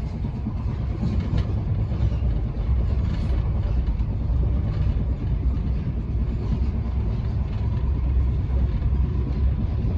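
Passenger train running along the line, heard from inside the carriage: a steady low rumble of wheels on rail.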